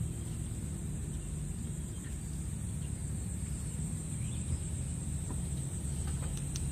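Quiet rural morning ambience: a steady, high-pitched insect drone with a few faint bird chirps over a low, constant rumble.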